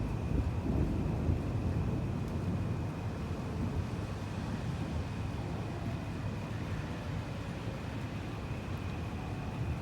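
Thunder rumbling from a distant storm, swelling over the first few seconds and then trailing off into a steady low roll.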